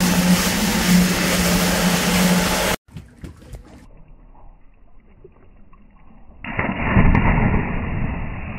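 Wind rushing over the microphone with a boat motor's steady hum, cut off abruptly a little under three seconds in. After a few quieter seconds, a low, muffled, drawn-out splash of a person hitting the water starts about six and a half seconds in.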